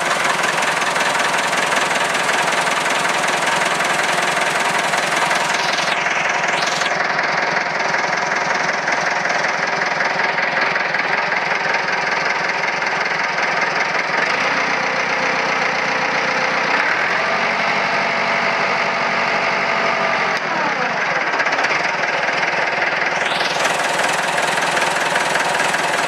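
Massey Ferguson 255 tractor's four-cylinder diesel engine idling steadily at low revs, a rough diesel clatter.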